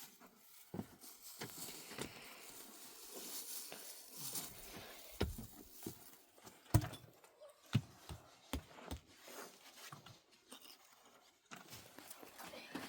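Scattered knocks and thuds, a dozen or so at uneven intervals, with the loudest about seven seconds in, over a faint hiss.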